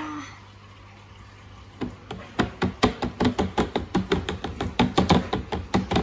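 Hands rapidly tapping and slapping a cornflour-and-water mixture (oobleck) in a plastic tub, the quick strikes making it firm. A run of sharp slaps starts about two seconds in, at roughly five a second.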